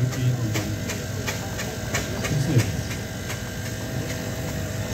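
Steam traction engine driving slowly, its exhaust chuffing at a steady beat of about three puffs a second over a low mechanical rumble.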